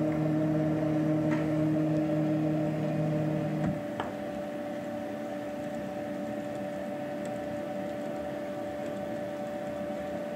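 CNC router's stepper-driven axes whining steadily as the machine moves the probe through a probing cycle at a faster feed rate. The motor tone cuts off about a third of the way in, a single sharp click follows, and a steadier, quieter machine hum carries on.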